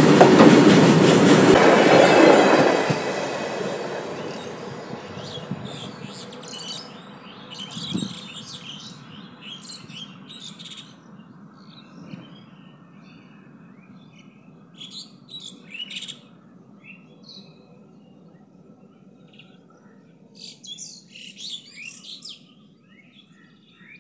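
Freight train of flat wagons loaded with concrete sleepers rolling past over the rails, loud for the first few seconds and then fading away as the last wagon clears. Birds then chirp on and off in short bursts.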